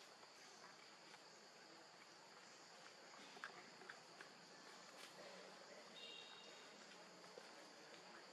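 Faint, steady high-pitched drone of an insect chorus, cicadas or crickets, with a few soft clicks in the middle and a brief faint chirp near the end.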